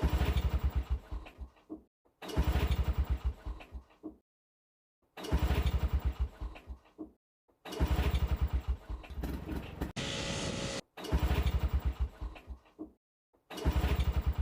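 Single-cylinder two-stroke JLO engine of a 1965 Bolens Hus-Ski 444 snowmobile running with a rapid, even firing beat. It comes in several bursts of about two seconds, each cut off abruptly with silence between, and a brief steady hiss sits about ten seconds in.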